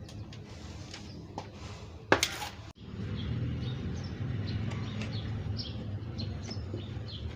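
Small birds chirping: many short, high chirps that drop in pitch, repeated over a steady low background rumble. About two seconds in, a short loud burst of noise, the loudest sound here, cuts off abruptly.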